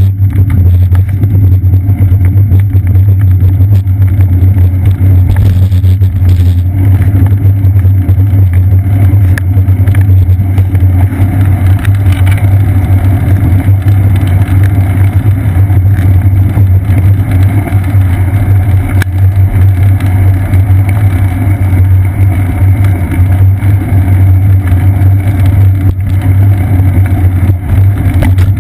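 Loud, steady low rumble of road vibration and wind picked up through a bicycle seat-post-mounted GoPro Hero 2 in its housing while the bike rides along a damp road.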